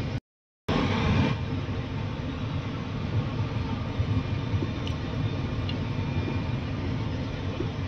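Steady rushing background noise around a pot on a stove, cut to silence for about half a second just after the start.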